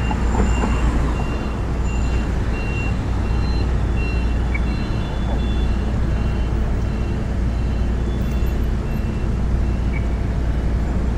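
City street traffic: a steady low rumble of passing vehicles and engines, with faint short high tones recurring on top.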